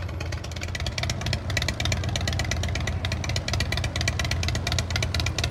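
A motor vehicle's engine idling, a steady low drone with a rapid, even pulse.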